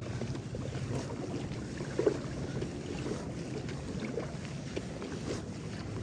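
Small splashes and water lapping around a Lure 10 fishing kayak on the water, with a small knock against the hull about two seconds in, over steady wind noise on the microphone.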